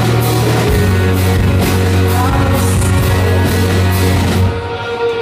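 Live rock song with a singer and acoustic guitar, loud, stopping at its end about four and a half seconds in.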